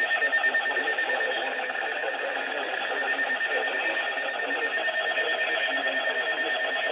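Electronic emergency-alert tone from a broadcast warning: a high, shrill beeping tone pulsing rapidly and without a break.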